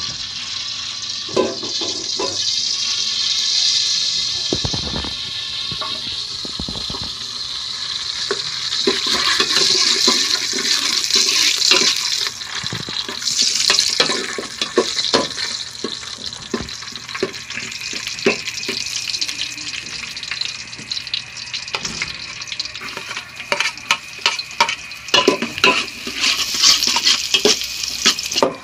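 Garlic sizzling in hot oil in an aluminium pot, a steady hiss, with a metal spoon clinking and scraping against the pot as it is stirred, more often in the second half.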